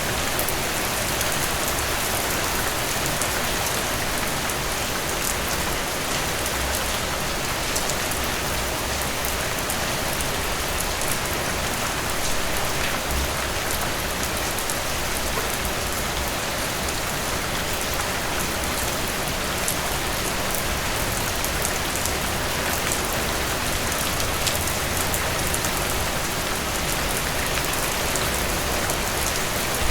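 Steady rain falling on a surface, with scattered individual drops ticking through the even hiss.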